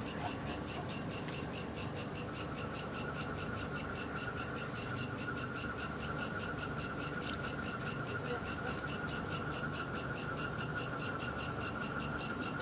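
Crickets chirping in a fast, even pulse, with a second steady insect trill coming in about two seconds in.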